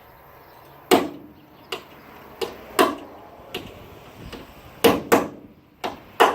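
Hammer striking a worn-out drill bit used as a punch, knocking clipped rivets through a Sprinter van's metal floor: about nine sharp blows at an uneven pace, some in quick pairs.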